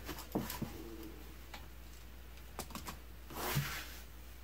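Light, irregular clicks and taps of a clear plastic quilting ruler and a pen handled against a cotton shirt as it is measured and marked, with a soft rustle about three and a half seconds in.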